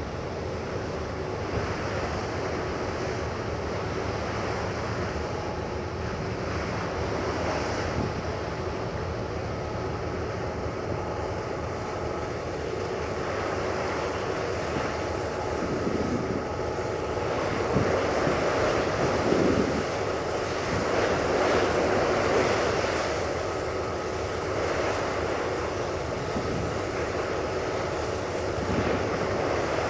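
Wind buffeting the microphone over choppy, breaking water, with the steady drone and faint whine of high-speed catamaran ferries running past at speed. It swells for a few seconds just past the middle.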